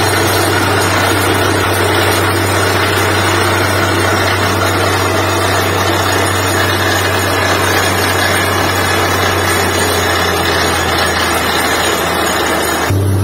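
Truck-mounted borewell drilling rig running steadily while drilling, a loud constant engine noise with a strong low hum under a dense hiss. Right at the end the hiss cuts away abruptly, leaving the low hum louder.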